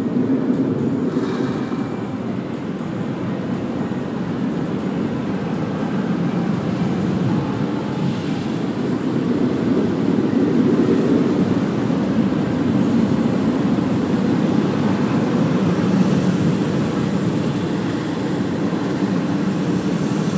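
Automatic tunnel car wash working on the car, heard from inside the cabin: a steady, loud rushing rumble.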